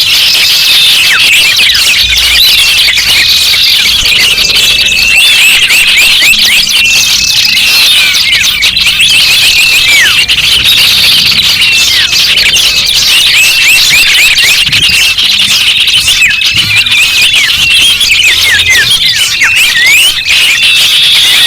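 A dense, continuous chorus of many small garden birds chirping and whistling over one another, loud, with rapid short notes sweeping up and down in pitch.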